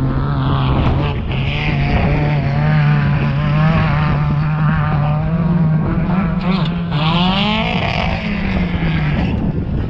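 Off-road race vehicle's engine running hard, its note wavering, climbing about seven seconds in and falling away near the end.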